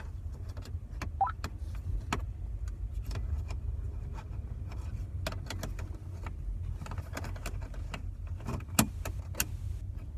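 Steady low rumble with scattered clicks and crackles, from a weather radio struggling to receive a weak NOAA Weather Radio station (KZZ30), which is barely coming in.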